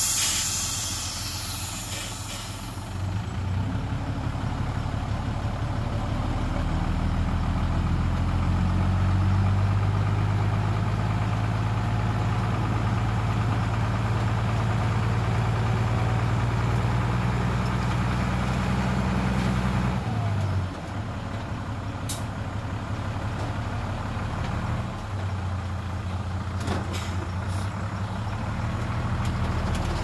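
Heavy diesel engine of earthmoving equipment working, with a burst of air hissing at the start. The engine builds up over several seconds, holds steady, then drops off suddenly about two-thirds of the way through. A few sharp knocks follow near the end.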